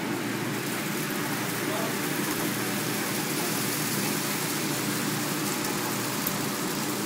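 Beaten eggs sizzling as they are poured in a stream onto a hot flat-top griddle: a steady hiss, with a steady low hum underneath.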